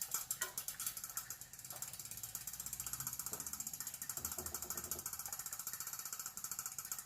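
Rapid, even mechanical ticking, about ten ticks a second.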